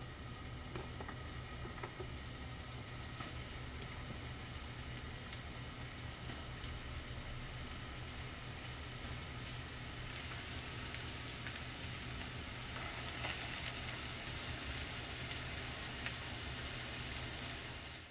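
Lotus root slices deep-frying in oil in a stainless steel pot: a steady crackling sizzle that grows louder about halfway through as more slices go in. There is one sharp click about a third of the way through, over a low steady hum.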